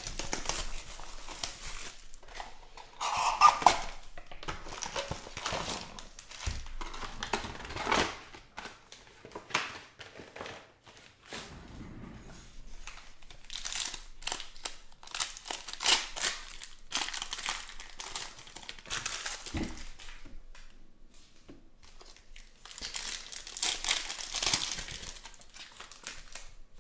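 Foil wrappers of Panini Mosaic Football hobby packs crinkling and tearing as packs are ripped open and the cards handled, in irregular spells, loudest a few seconds in and again near the end.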